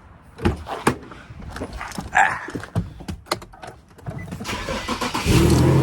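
A series of short clicks and knocks, then a car engine starts about five seconds in and keeps running steadily at idle.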